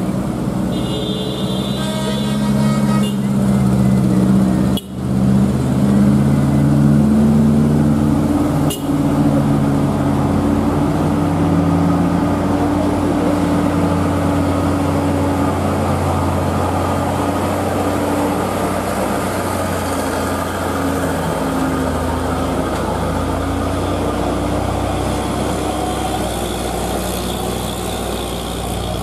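Heavy diesel truck engines running steadily as trucks climb and round a steep hairpin, with a short higher-pitched tone in the first few seconds.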